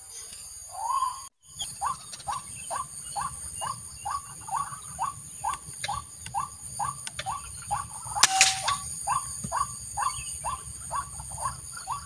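White-breasted waterhen calling: a rapid, steady series of short rising notes, about three a second. A single sharp crack sounds about eight seconds in.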